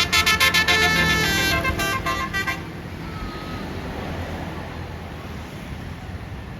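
Basuri telolet multi-tone air horn on a tour bus playing a fast, stepping melody that stops about two and a half seconds in, followed by steady traffic noise.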